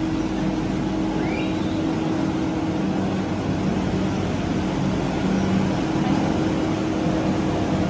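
Cable-car station's bullwheel and drive machinery running: a steady mechanical hum with a held tone and a lower tone that wavers, over a rumble.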